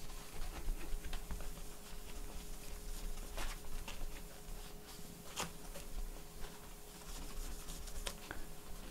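Faint handling sounds of a laptop display assembly being worked on the bench: light rubbing with a few scattered sharp clicks, over a faint steady hum.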